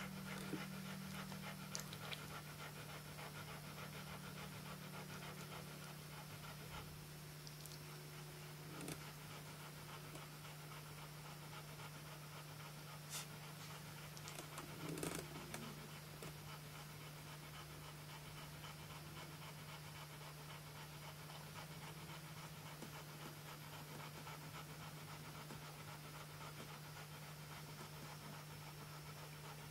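Flat-coated retriever mother panting steadily as she lies nursing her three-day-old puppies, over a low steady hum. A few faint clicks break in, the most noticeable about halfway through.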